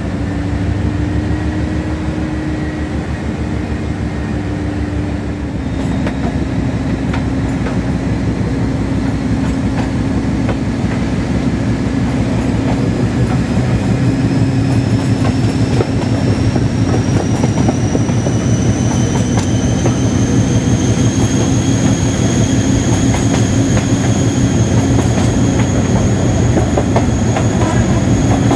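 Class 56 diesel locomotive's 16-cylinder Ruston Paxman engine working under power, a deep pulsing throb with a high-pitched whine that rises in pitch from about halfway through and then holds as the train accelerates. It grows gradually louder.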